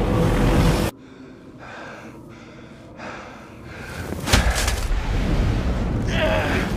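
Film soundtrack: blizzard wind that cuts off abruptly about a second in, a quiet stretch, then a sudden heavy thud as a man falls into snow, followed by rough rustling noise and a short gasp near the end.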